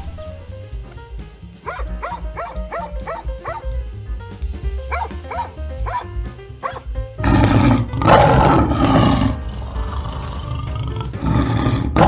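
Background music, then a large animal roaring about seven seconds in for two seconds or so, and again briefly near the end.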